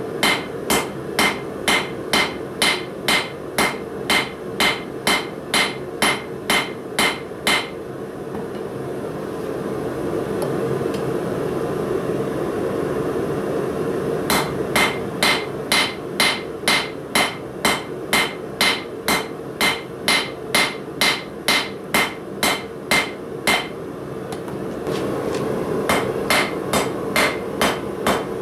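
Hand hammer striking red-hot 3/8-inch mild steel bar on a small anvil, about two blows a second, each with a bright metallic ring. The hammering stops for about six seconds partway through, then resumes, with another short pause near the end. A steady rushing noise runs underneath.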